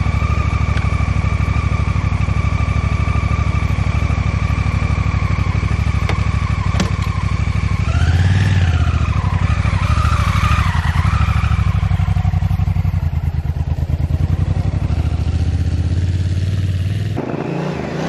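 Honda Africa Twin CRF1000L's parallel-twin engine idling steadily, then revving up and down as the motorcycle pulls away over the grass from about eight seconds in.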